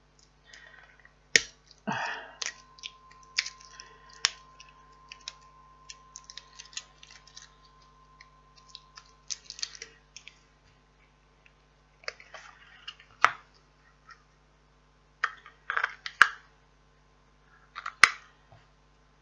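Plastic clicks, taps and rustling as batteries are fitted into a wireless weather station's outdoor sensor and its battery compartment is handled, with a few sharp clicks standing out.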